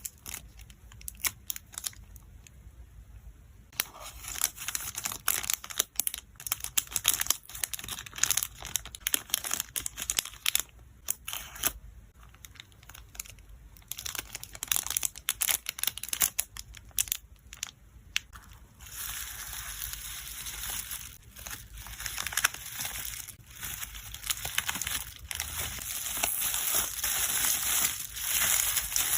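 Plastic packaging for photocards crinkling and rustling as it is handled, with many short sharp rustles and clicks. About two-thirds of the way in it turns into a denser, more continuous rustle.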